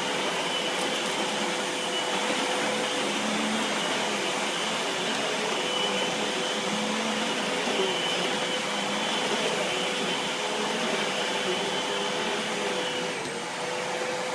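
Eureka Boss canister vacuum cleaner running steadily with its power head on, an even motor whine with a steady hum underneath; it dips slightly in level near the end.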